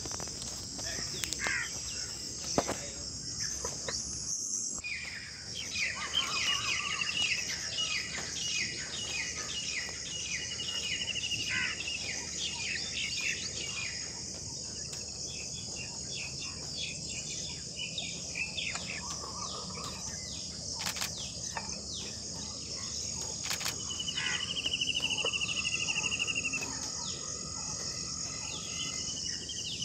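Small birds chirping in quick repeated series, loudest from about five seconds in and again near the end with a fast trill, over a steady high insect drone.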